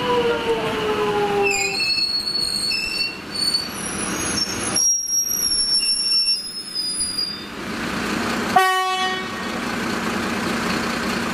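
X'Trapolis electric train at a station platform: the motor whine falls away, then the wheels squeal on the rails in high-pitched screeches for several seconds over the steady rumble of the cars. About eight and a half seconds in there is one short horn toot.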